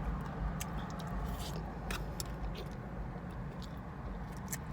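A person chewing food close to the microphone, with a few sharp mouth clicks, over a steady low hum.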